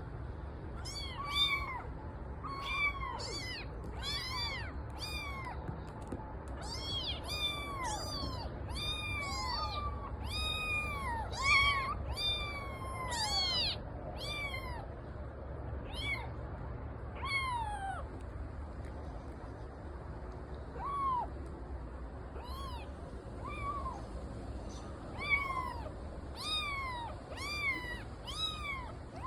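Kitten meowing over and over: short, high-pitched calls that rise and fall, about one a second, thinning out for a few seconds around the middle.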